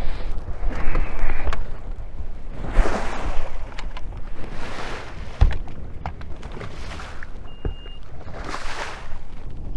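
Choppy water slapping and washing against a drifting bass boat's hull, coming in surges every second or two, with wind, a few sharp knocks and a short high beep about three quarters of the way through.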